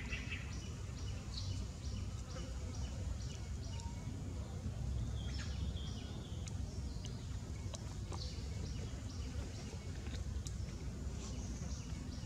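Outdoor ambience: a high-pitched chirp repeated a few times a second in runs, over a steady low rumble, with a few sharp clicks.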